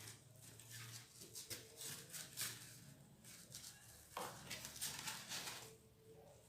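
Faint rustling, dabbing and scraping by hand, an irregular string of soft strokes: fabric soaked in white cement slurry being pressed over a thermocol form.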